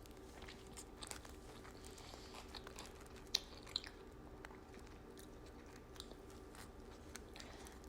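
Close-miked chewing of a toasted steak and cheese sub on Italian herbs and cheese bread: soft, moist mouth clicks and small crunches, with two sharper clicks about three and a half seconds in.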